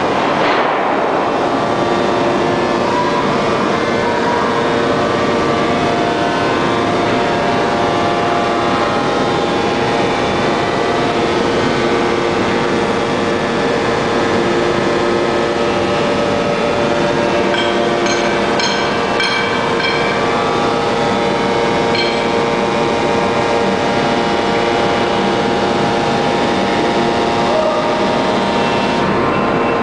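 1250-ton open-die forging press running: a loud, steady industrial din with several humming tones. A short run of high ringing pings comes about two-thirds of the way through.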